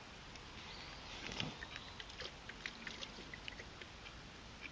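A person eating a chocolate chip snack bar: faint scattered crackles and clicks, with a soft crunch about a second and a half in.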